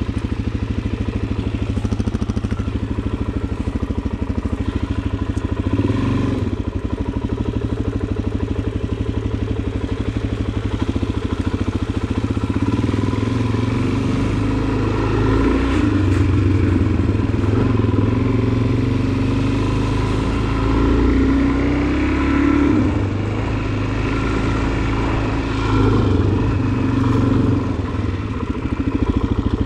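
Suzuki DR-Z400SM's single-cylinder four-stroke engine running as the bike is ridden, its pitch rising and falling with the throttle and getting louder in stretches after the middle.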